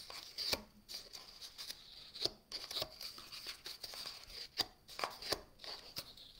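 Paper being folded and pinched by hand: irregular soft rustles and crisp little crinkles as the corners of a card-stock basket are pressed into shape.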